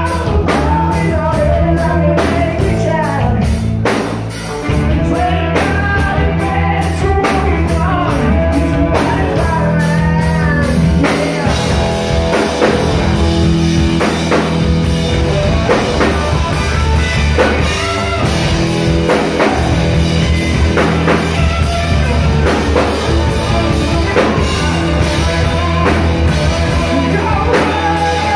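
A rock band playing live: hollow-body electric guitar, electric bass and drum kit, with a man singing. The band drops out briefly about four seconds in, then comes back in.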